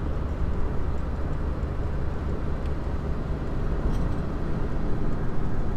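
Steady low rumble of an Opel car on the move, heard from inside the cabin: engine and road noise with no distinct events.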